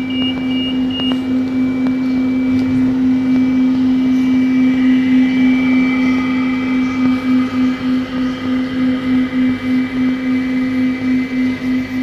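Autonomous vacuum-cleaning robot running with a loud steady hum and a fainter high whine; a few short high beeps sound at the start, and about halfway through the hum begins to pulse about twice a second.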